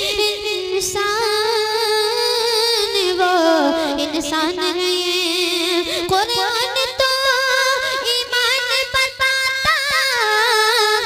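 A boy singing a naat into a microphone, drawing out long held notes with wavering ornaments. The line sinks lower about four seconds in and climbs back up about two seconds later.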